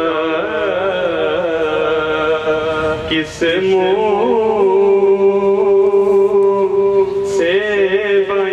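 A man singing a devotional Urdu naat in long held notes that waver and turn, over a steady drone. The line breaks off briefly about three seconds in, then resumes on a long sustained note.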